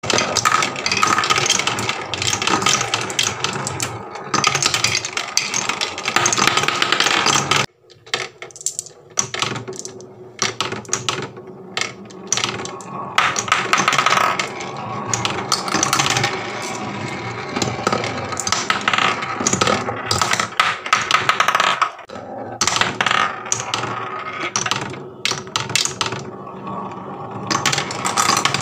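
Marbles rolling and clattering down a wooden marble run: rumbling along grooved wooden tracks and clicking against wooden pegs and track joints. The sound cuts out abruptly about eight seconds in, then picks up again with several marbles rattling round a wooden spiral.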